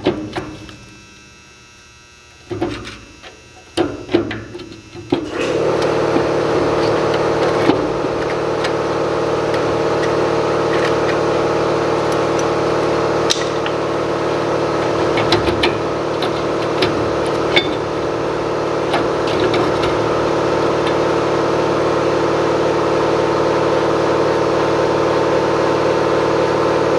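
A few clatters of metal parts being handled, then about five seconds in a motor starts and runs with a steady, loud hum, with scattered small clicks over it.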